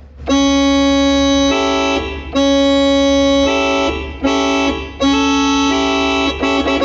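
Yamaha PSR-F51 keyboard imitating a locomotive air horn with a held multi-note chord. It sounds in blasts of long, long, short, long, the pattern of a railroad grade-crossing signal, then a few quick short notes near the end.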